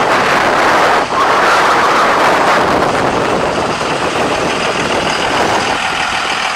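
The truck's 5.9-litre Cummins inline-six turbo diesel idling steadily.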